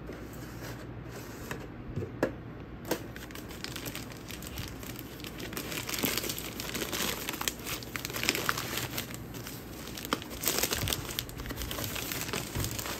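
Thin plastic wrapping crinkling and rustling as it is pulled open and peeled off a fabric carry bag, with a few sharp crackles in the first three seconds and steadier crinkling after that.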